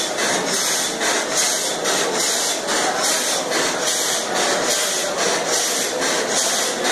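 Fire-tube steam boiler plant running: a steady rushing noise with a regular pulse in the upper range, about two beats a second.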